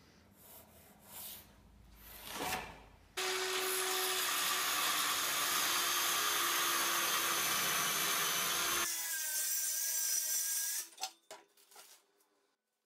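Cordless DeWalt circular saw cutting a birch board, a loud steady cut for about five and a half seconds. The saw then runs on with a thinner high whine for about two seconds and stops, followed by a few knocks as it is set down. Before the cut, faint rubbing and taps of a pencil marking the board.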